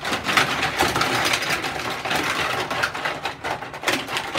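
Plastic bath toys clattering and rattling as they are rummaged out of a plastic wall caddy and dropped into the bath, a dense run of many small knocks.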